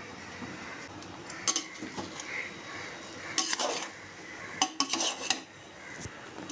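Metal spoon scraping and clinking against the side of a large metal cooking pot as cooked basmati rice is turned over, with a few sharp clinks, most of them in the second half. The rice is being checked after dum cooking and has cooked dry.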